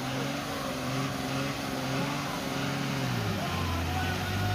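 Tata tipper truck's diesel engine revving under load as the truck tries to climb out of deep muddy ruts; the revs hold steady, then drop to a lower, steady speed about three seconds in.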